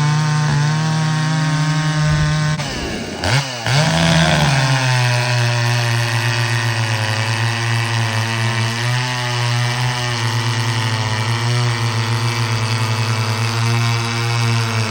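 Muffler-modified Echo 680 two-stroke chainsaw running hard at a high steady pitch. About three seconds in its pitch drops sharply and climbs back, then it runs on at a lower pitch with an even pulsing.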